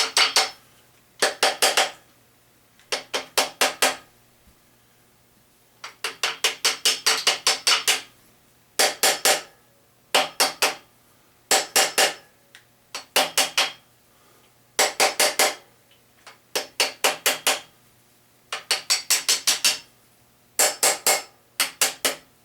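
Hammer tapping on metal in short bursts of several quick strikes, each strike ringing, with brief pauses between bursts: knocking a piston and connecting rod out of a 350 small-block V8 during teardown.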